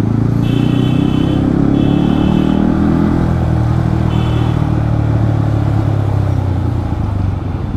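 Yamaha MT-15's single-cylinder engine through its loud exhaust, running on light throttle in slow traffic, heard from the rider's helmet. The engine note shifts with the throttle over the first few seconds, then steadies.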